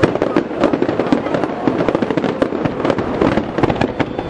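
Fireworks shells bursting in a rapid barrage, with dense overlapping bangs and crackles and no pause between them.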